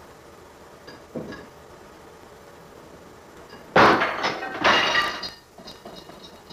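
Dishes clattering and clinking on a kitchen countertop as a dog standing on the counter knocks into a stack of plates. The loud clatter comes about four seconds in and lasts about a second and a half, after a soft knock about a second in, over a steady hiss from the home-video recording.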